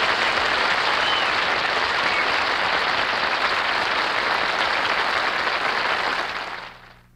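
Studio audience applauding steadily; the applause fades out quickly near the end, leaving a faint low hum.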